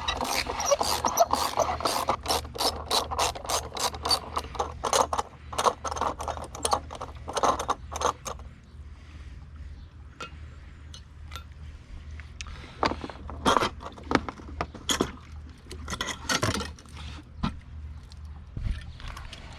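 Ratcheting clicks, about three a second for roughly the first eight seconds, as the pool cartridge filter housing is unfastened, followed by scattered knocks and scrapes of the housing parts being handled.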